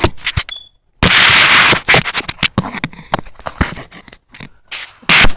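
Handling noise from a phone being moved and turned: a run of sharp clicks and knocks, with a loud rustle about a second in.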